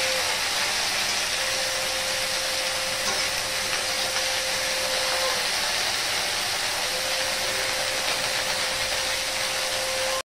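Okra sizzling in hot oil in an aluminium kadai, a steady hiss while it is stirred with a spatula. A thin steady tone runs underneath, breaking off twice.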